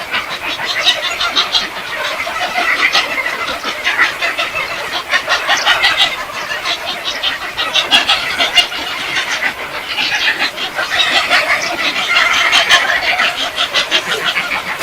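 Dense chattering and squawking of a large colony roosting in a tree, many calls overlapping without a break.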